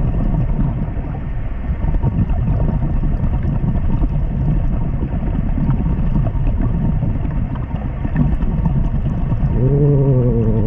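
Steady low underwater rumble of water noise, muffled as heard by a camera in a waterproof housing. Near the end a diver's short hummed voice comes through, rising in pitch and then holding.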